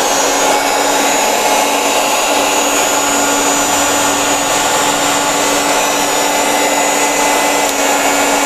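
Mixer grinder's universal motor, with its housing open, running steadily at speed with a continuous whine. Newly fitted carbon brushes let it spin smoothly, without sparking at the armature.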